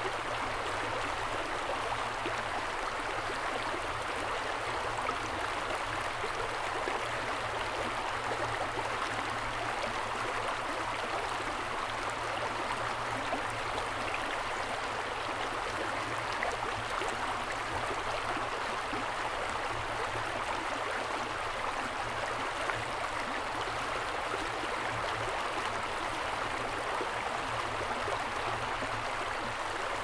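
Mountain river flowing, a steady, even rush of water.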